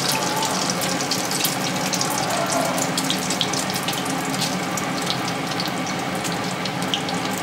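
Egg-coated chicken pieces deep-frying in hot oil in a karahi: steady sizzling with dense crackling pops.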